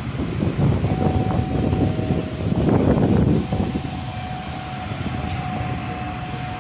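Arriva SA133 two-section diesel railbus rolling slowly past, with its diesel engine and wheels making a low rumble and a steady whine above it. The rumble grows louder for a moment about three seconds in.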